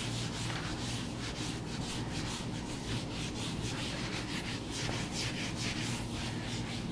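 Whiteboard eraser being rubbed across a whiteboard in many quick back-and-forth strokes to wipe off marker writing.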